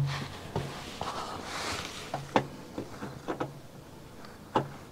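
Light, irregular clicks and knocks of a new spin-on oil filter being handled and threaded onto its metal filter base, with a soft rubbing hiss about one and a half seconds in and a sharper knock near the end.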